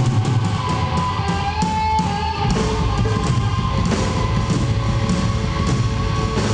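Live rock band playing loudly: guitar and drums together, with a few long held high notes over the dense band sound.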